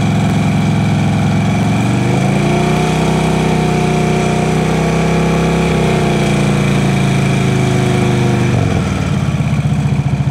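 Harley-Davidson touring motorcycle's V-twin engine revved in first gear while the clutch is slipped to meter power to the rear wheel. The revs climb about two seconds in, hold steady, and drop back near the end.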